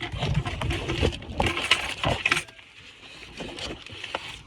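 Small metal clinks and scrapes from handling tub drain plumbing parts and fittings, busy for the first couple of seconds, then a few scattered ticks.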